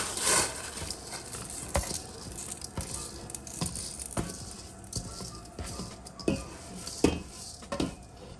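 Wet rice sliding from a stainless steel bowl into a pot of boiling water, a rush of splashing at the start, then a hand scraping the rice out of the bowl with scattered clinks and knocks of the metal bowl against the pot.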